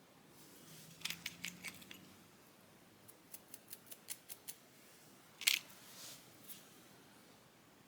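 Small metal ear-grooming tools clicking close by: a few soft clicks early, then a quick even run of about eight sharp clicks, and one louder short scraping rustle about five and a half seconds in.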